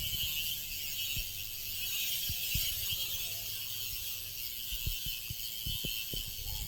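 Box Three bicycle freehub ratcheting as the wheel freewheels, its pawls giving a steady, fast, high buzz of clicks, with scattered low knocks underneath.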